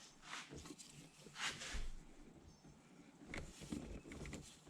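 Faint handling noises while work goes on at the belt tensioner in the engine bay: two short rustling swishes and a few light clicks.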